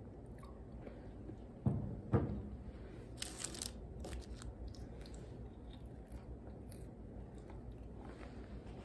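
A person eating French fries close to the microphone, chewing and crunching. There are two dull thumps about two seconds in and a short crisp crackle a second later.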